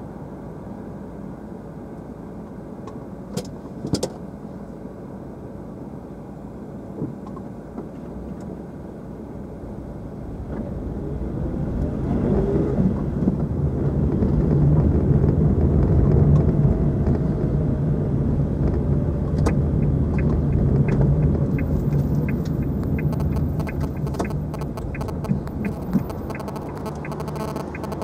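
Car driving, heard from inside the cabin: a steady rumble of tyres and engine hum that grows louder about ten seconds in and eases off near the end, with a few small clicks and rattles.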